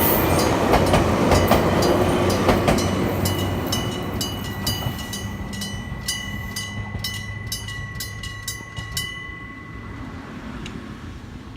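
A Hokuriku Railroad 8000 series (8900 type) electric train runs over a level crossing and moves away, its wheels clicking over the rail joints. Under it the crossing's electric bells ring with rapid strikes. The bells on the two sides ring at different speeds and out of step, and they stop about nine seconds in.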